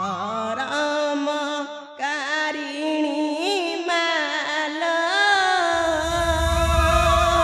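A man singing close into a stage microphone in a drawn-out classical Indian style, holding long notes that waver and bend. A low rumble comes in under the voice near the end.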